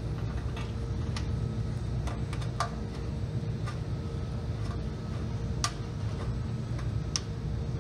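Irregular light clicks and taps, about one every second or so, from hands working a bolt into the fender bracket behind a plastic fender liner, over a steady low hum.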